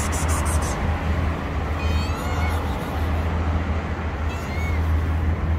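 Calico kitten meowing, two short high calls about two seconds in and again about four and a half seconds in, over a steady low rumble.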